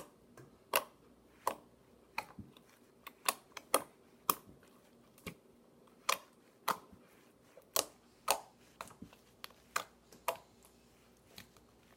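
Orange borax-activated slime, mixed with lotion, being pressed and poked with the fingertips, giving sharp, irregular clicking and popping sounds about one or two a second.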